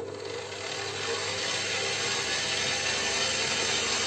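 Kenwood kMix stand mixer running steadily, its motor turning the kneading attachment through flour in a stainless steel bowl. The motor has just been switched on and comes up to speed over the first second.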